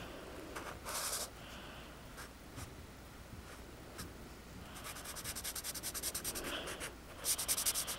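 Black marker tip scratching on paper while colouring in a drawing: a few separate strokes at first, then from about five seconds in a run of quick back-and-forth strokes that gets louder near the end.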